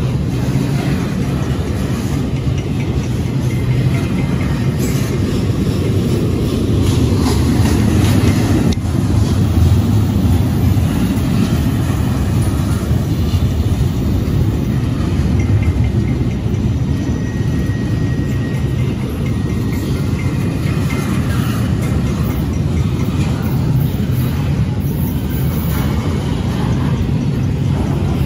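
Double-stack intermodal freight train's well cars rolling past: a steady low rumble of steel wheels on rail, with a few knocks from the cars.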